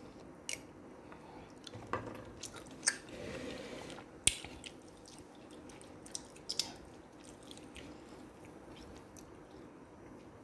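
A person chewing saluyot (jute leaf) soup with chicken close to the microphone, with a few sharp clicks scattered through.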